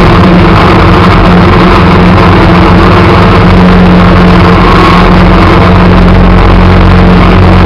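Engine of a snow-plowing vehicle running loud and steady under load, close to the microphone, with the rushing hiss of snow being pushed and thrown.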